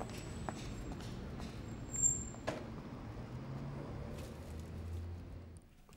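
Street ambience with the low hum of passing traffic, swelling briefly near the end, a few light knocks and a short high squeak about two seconds in.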